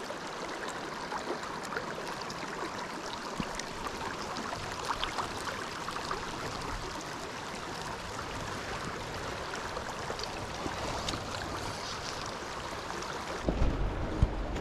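Small creek flowing over rocks, a steady rushing babble of water with small splashes. Near the end a low rumble sets in on the microphone.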